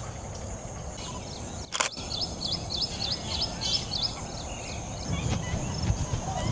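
A small bird calling a quick run of about ten short, high notes, each sliding downward, about two seconds in. A single sharp click sounds just before the run.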